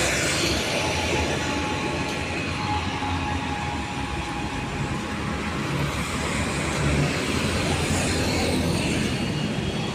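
Road traffic passing on a wide city road, cars and a motor scooter going by: a steady wash of engine and tyre noise.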